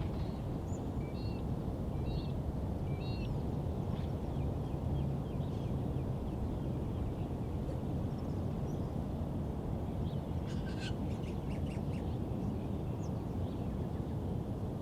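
Outdoor park ambience: a steady low rumble of the surrounding suburban city under scattered bird calls, with three short alike chirps in the first few seconds and a brief flurry of calls about ten seconds in.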